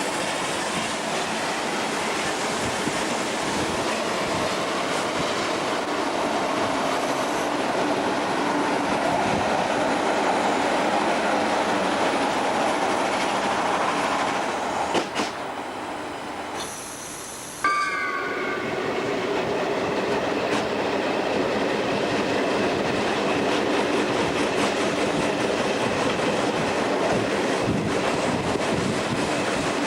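A train of FS 'centoporte' carriages running along the track with a steady rumble of wheels on rail. About halfway through it drops quieter for a couple of seconds, then comes back with a brief pitched tone.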